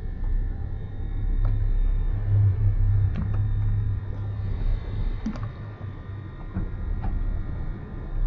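A low, uneven rumble runs throughout, with a few light clicks spaced a couple of seconds apart.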